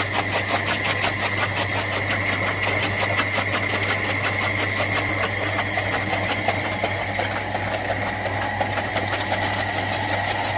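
Electric vegetable-chopping machine running steadily over a low motor hum, its blade cutting in a fast, even rhythm of about six strokes a second.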